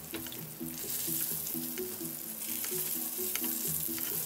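Pork chops sizzling gently in butter and olive oil in a frying pan, with small crackles, as the hot fat is spooned over them to baste.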